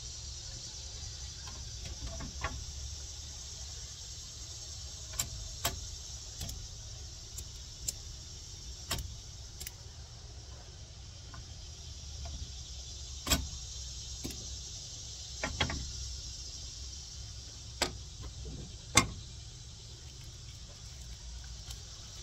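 Steady insect buzz with about a dozen sharp clicks and knocks scattered through it as a frying pan is lifted and set back on a portable gas camp stove.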